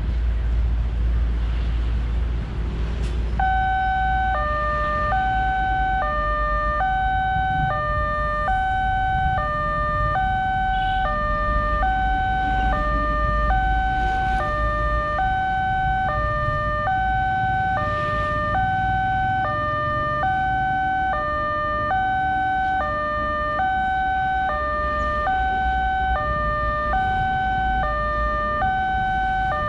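Electronic two-tone alarm of a railway level crossing, starting about three seconds in and switching steadily back and forth between a higher and a lower tone. It sounds as the red signal lights and the barrier comes down: the warning that a train is approaching. A low rumble runs under it.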